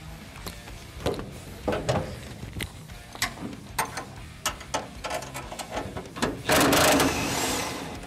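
Cordless power driver spinning bolts in short bursts, with scattered clicks and clanks of metal, and a longer, louder run about six and a half seconds in.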